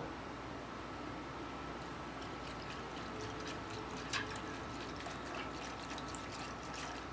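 Wire whisk stirring thin liquid in an enamelled cast-iron saucepan, starting a couple of seconds in: soft sloshing with light, quick ticks of the wires against the pan and one slightly sharper clink about four seconds in. A faint steady high whine sits underneath.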